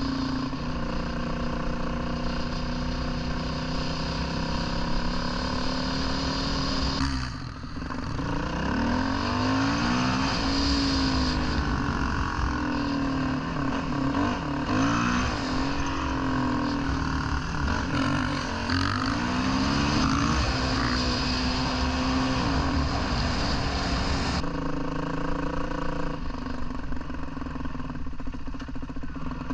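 Dirt bike engine running as it is ridden, its pitch rising and falling with the throttle. The throttle briefly drops off about seven seconds in, and the engine settles steadier near the end. A low rumble of wind runs under it.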